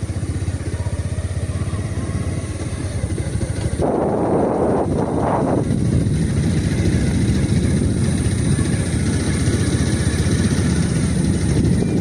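A motor engine running steadily with a low rumble, growing louder about four seconds in with a brief rushing surge.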